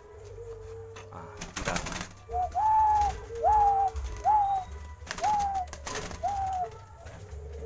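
Caged doves calling: a low drawn-out coo runs beneath a series of short notes that rise and then fall, about one a second, starting a little over two seconds in. A knock from the cage's wire or wood sounds about two seconds in.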